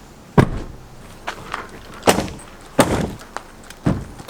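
A series of sharp knocks and bangs: four loud ones about a second apart, with a couple of lighter knocks between.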